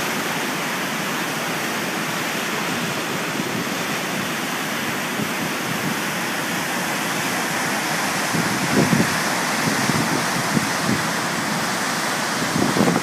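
Gullfoss waterfall: a loud, steady rush of falling water. Low, irregular bumps come through from about eight seconds in.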